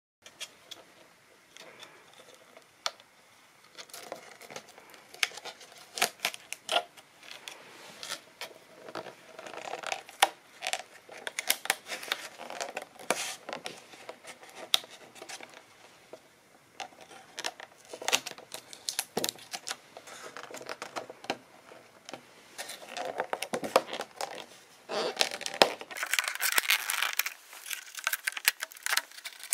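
Thin clear plastic container crinkling, clicking and scraping as it is handled and pried at in a struggle to get it open. The handling is irregular and grows denser and louder in the last few seconds.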